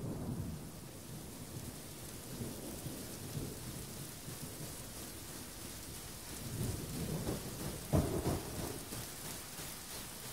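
Steady rain with low rolling thunder, swelling to a sharper thunderclap about eight seconds in.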